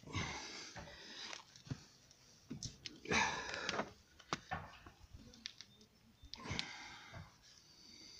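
Heavy, strained breathing from a person forcing a tyre-plug insertion needle into a car tyre, three loud breaths spaced a few seconds apart, with a few small clicks between them.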